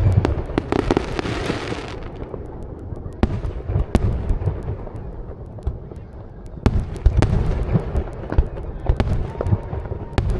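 Fireworks display: deep booms of shells bursting mixed with many sharp cracks. A dense crackling hiss fills the first two seconds, the bangs thin out in the middle, and a quicker run of booms and cracks starts about two-thirds of the way through.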